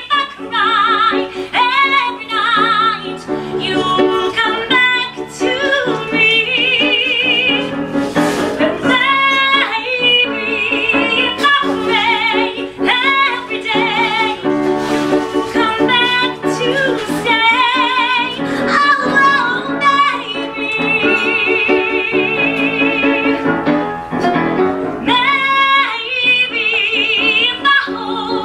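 A soprano singing a 1950s girl-group ballad with wide vibrato, accompanied by piano chords.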